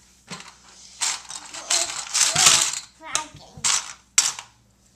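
Plastic alphabet magnet letters rattling and clattering in a plastic bowl as a toddler rummages through them by hand, in several short bursts.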